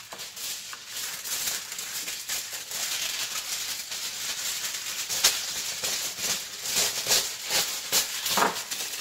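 Aluminum foil crinkling and crackling as sheets are handled and cut with scissors: a dense, high crackle, with a few louder crunches in the second half.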